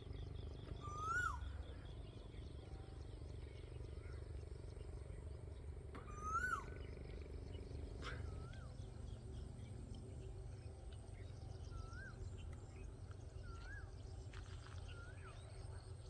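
Asian koel calling: short whistled calls that rise and then drop sharply, two clear ones about five seconds apart followed by fainter ones every second or two. A faint low rumble runs underneath.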